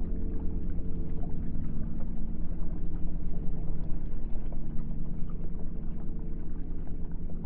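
Electronic ambient drone: several steady low tones held together over a rumbling, crackling noise bed, with no change in pace.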